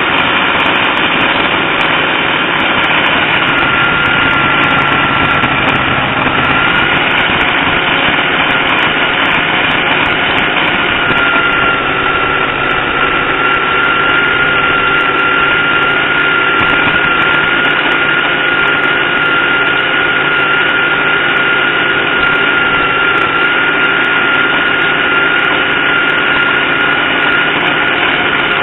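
Supercharged, nitro-burning engine of an AA/FA fuel altered drag car idling steadily, heard up close from the car's body. A steady high whine joins about four seconds in.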